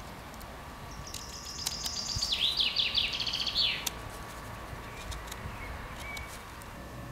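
A songbird sings one phrase of about three seconds: a fast high trill, then a run of quicker, lower sliding notes. Faint clicks of a knife cutting into a fresh rowan stick come through now and then.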